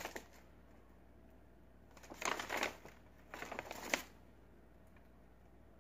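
Brown paper bag rustling and crinkling as it is handled, in two short bursts, about two seconds in and again about a second later.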